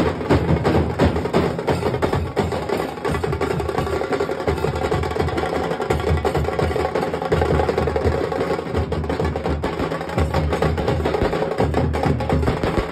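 Nasik dhol troupe playing: several large barrel dhols beaten with sticks and a brass hand cymbal, a dense, fast, unbroken rhythm.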